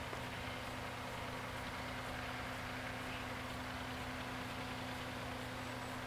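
Steady low hum of an idling engine, holding one pitch throughout.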